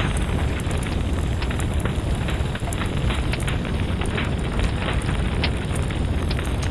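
Wood fire in a fireplace crackling steadily, with frequent small pops over a low, continuous roar of burning.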